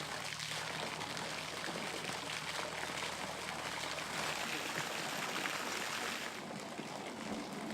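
Steady rushing of running water, with a low hum underneath that stops about four seconds in.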